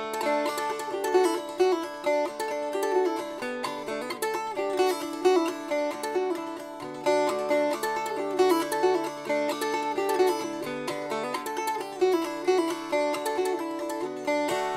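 Instrumental background music of quickly picked plucked strings with a steady beat.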